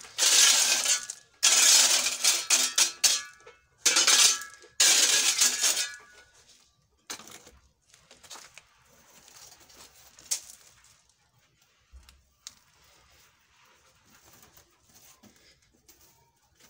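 Metal shovel scraping and pushing through crushed stone gravel, the stones clattering, in four long strokes over the first six seconds. Then only faint clicks and rustles.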